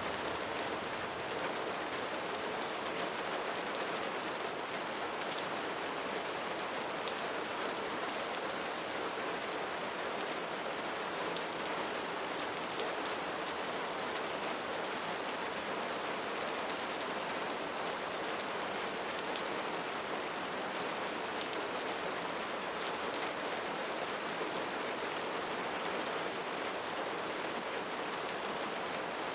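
Steady rain falling on leaves, an even hiss of many close raindrops with a fine pattering texture.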